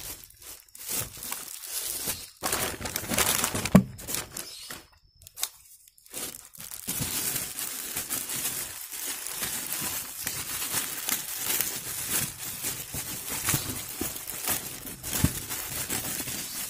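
Clear plastic wrapping crinkling and tearing as hands pull it open, in irregular crackles. The sharpest crackle comes a little before four seconds in, followed by a short lull, then crinkling runs on.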